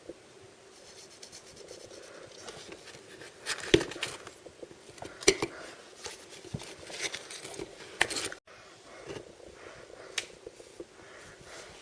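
Packaging being handled and opened by hand: soft rustling, scraping and crinkling, broken by three sharp snaps or clicks in the middle of the stretch.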